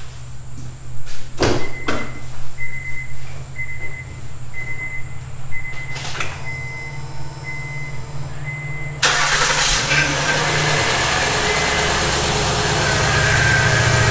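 A few clicks and knocks, then a car's door-open chime beeping about twice a second; about nine seconds in, the Honda Pilot's 3.5-litre V6 starts suddenly and runs on steadily. This is its first start after a timing belt and water pump replacement, the pass-or-fail test of whether the cam timing is right.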